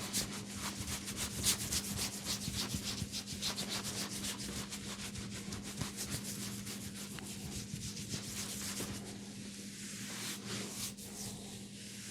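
Fingers rubbing and scratching through hair and over the scalp in a head massage, a fast run of scratchy strokes that thins out after about nine seconds.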